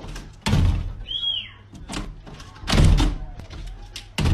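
Three heavy thuds, one about half a second in, one near the middle and one near the end, each dying away quickly, with a short high squeak between the first two.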